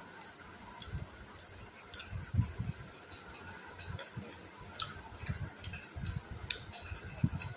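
Close-up chewing of roti and green chillies: irregular soft low thuds with scattered sharp mouth clicks.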